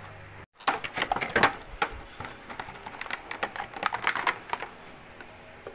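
Clear plastic blister insert crinkling and clicking as a vinyl Funko Pop figure is pulled out of it: a run of irregular crackles that trails off near the end.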